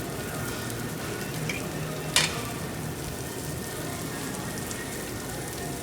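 Food sizzling steadily on a tabletop Korean barbecue grill, with a single sharp tap about two seconds in.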